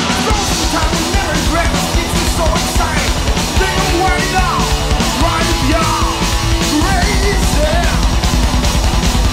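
Heavy metal band playing at full tilt: distorted electric guitars and bass over fast, dense drumming, with a lead part sliding up and down in pitch.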